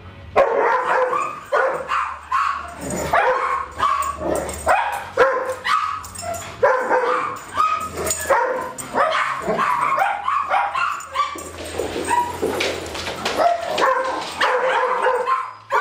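Dogs barking and yipping in rough play: a rapid string of short calls that goes on throughout.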